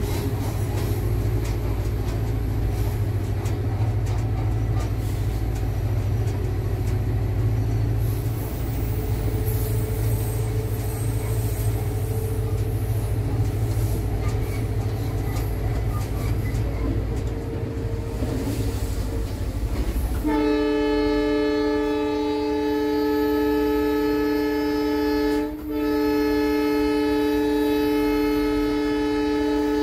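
Cab of an EMD GT46PAC (WDP4) diesel-electric locomotive running at speed: a steady low rumble of its 16-cylinder 710 diesel engine and the running gear. About two-thirds of the way through, the locomotive's horn sounds two long, steady blasts with a brief gap between them.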